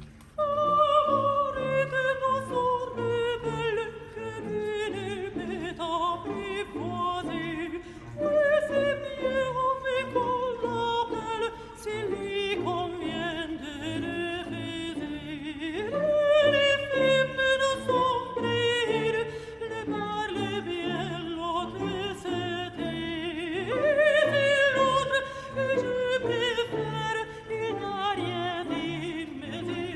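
Background music: a held, pitched melody line that sinks slowly over about eight seconds, then jumps back up and sinks again, four times over.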